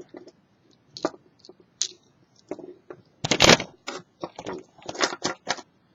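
Metal handcuffs clicking and rattling as they are worked open by hand: a run of short clicks and scrapes, with one louder clatter about three seconds in.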